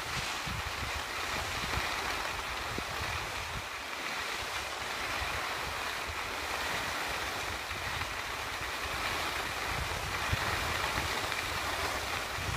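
Skis sliding over groomed snow with a steady hiss, while wind rumbles and buffets on the microphone.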